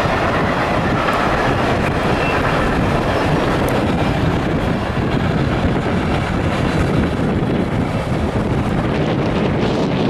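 Freight train of loaded flatcars rolling past, with a steady noise of steel wheels on rail.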